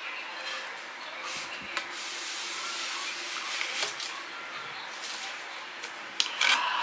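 Rubbing and scraping as a poster tube is handled and worked open, with a few sharp clicks near the end.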